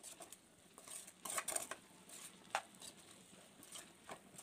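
A spoon scraping and clinking against a pan while prawns are stirred and fried, in short irregular strokes with a quick cluster about a second in.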